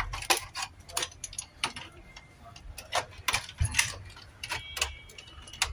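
Irregular small plastic clicks and ticks, several a second, as a plastic opener tool pries along the seam of a BenQ MS502P projector's plastic top cover, working its internal clips loose.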